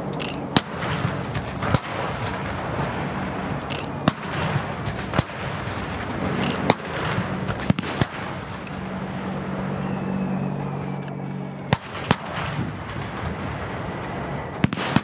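Artillery fire mission: about ten sharp booms at uneven intervals, some in quick pairs, over a steady low hum.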